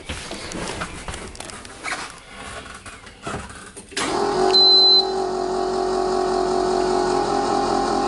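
School bus engine being cranked by its starter after the ignition key is turned, a steady whirring that begins suddenly about halfway through with a short high beep near its start. Clicks and handling noises come before it.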